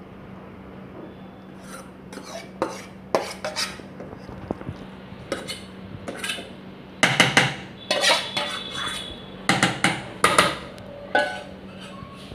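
Steel spoon scraping and knocking against a steel bowl as samosa filling is scooped out, in irregular metal clinks and scrapes that come thickest and loudest in the second half.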